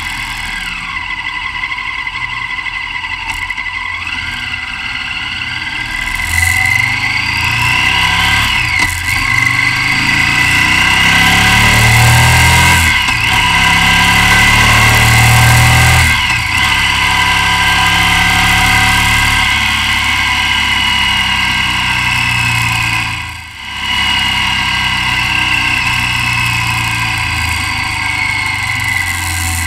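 V-twin motorcycle engine under way, heard through a mount-fixed action camera that picks up the bike's vibration, with revs rising and dropping several times as it pulls away and accelerates. There is a brief lull in the engine sound a little past two-thirds of the way through.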